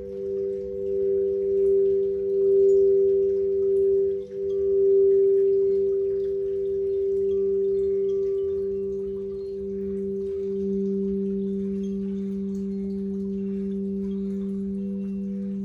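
Several crystal singing bowls sounding together in three steady, overlapping tones, with a slow wavering pulse in the low tone midway and in the high tone near the end.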